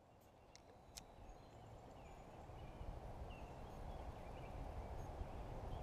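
Outdoor creekside ambience fading in: a low, steady rushing noise that grows louder, with faint short bird chirps every second or so. There are a few sharp clicks in the first second.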